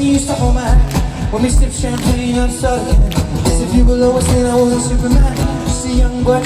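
Live acoustic guitar music over a steady thumping beat, with a man singing, heard through a concert's stadium PA from within the crowd.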